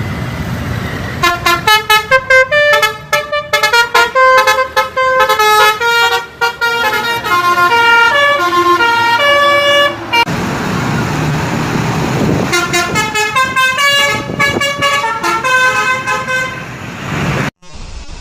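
Bus 'telolet' Basuri horn, a multi-tone horn, playing quick melodic runs of short notes stepping up and down, over a low engine rumble. The rumble swells for a few seconds around the middle while the horn pauses, then the horn tune resumes and cuts off suddenly near the end.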